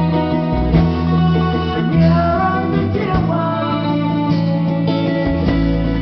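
Live rock band playing: electric guitars strumming chords over bass guitar and drums, at a steady mid tempo.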